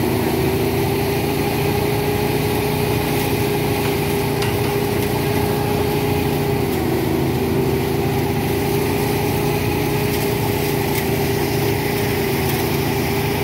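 Small engine running steadily at constant speed, with a steady whine that does not change.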